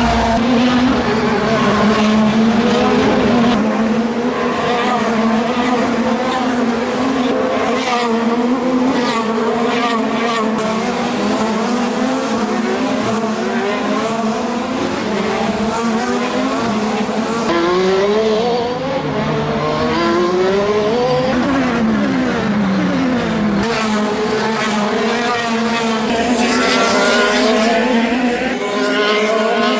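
IndyCar race cars' twin-turbo V6 engines running as a field, several at once. Their notes rise and fall, and several cars go by with falling pitch past the middle.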